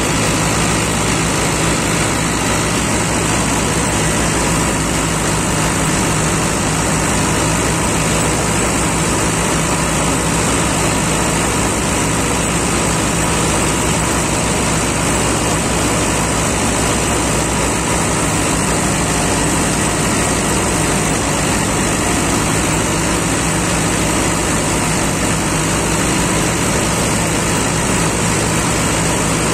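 Mahindra Novo tractor's diesel engine running steadily while its mounted harvester's reel and cutter bar work through dry crop, a loud, even machine sound with no changes.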